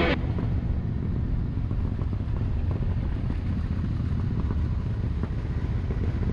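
Motorcycle running on the road, a steady low rumble.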